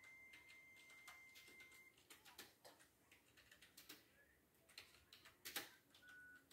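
Faint scattered clicks and taps of plastic Lego pieces being handled and pressed together, with a faint steady high tone for about the first two seconds.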